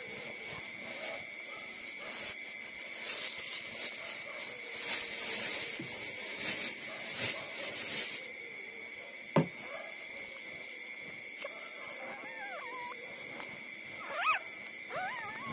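Newborn puppies nursing, with soft rustling and snuffling, then high, wavering whimpering squeaks about twelve seconds in and again near the end. There is one sharp knock about nine seconds in, and a steady high-pitched tone under it all.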